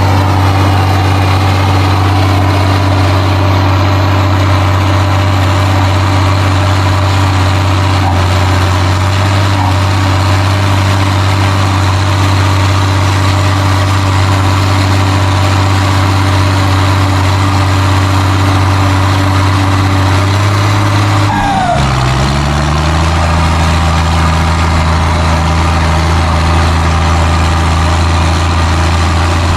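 Valmet 1280 tractor's diesel engine running steadily under working load. About two-thirds of the way through, its note dips and settles at a lower pitch.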